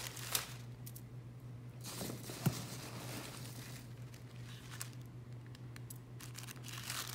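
Faint rustling and crinkling of wrapping as succulent cuttings are unwrapped by hand, with a couple of light knocks, over a steady low hum.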